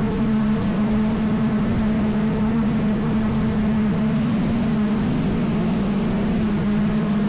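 Steady drone of a vehicle travelling at an even pace: one constant engine hum over a low rumble, unchanging throughout.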